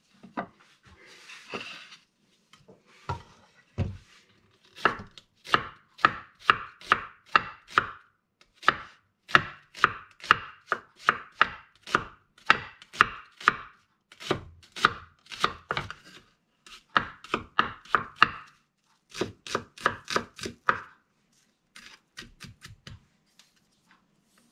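Chef's knife chopping garlic and onion on a wooden cutting board: sharp knocks of the blade on the board, about three a second, in runs broken by short pauses. The chopping stops about 21 seconds in.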